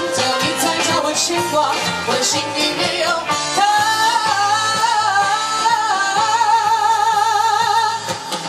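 Live pop band with a female singer. About three and a half seconds in she holds one long note with a strong vibrato over the band's steady beat, and it stops near the end.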